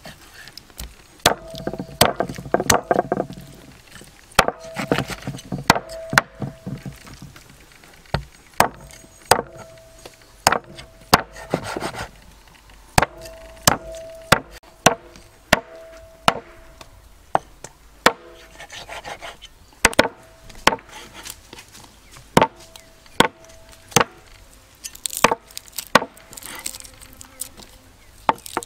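A blade chopping on wood in irregular strikes, about one to two a second, many of them leaving a brief ringing note, with short spells of scraping between strikes.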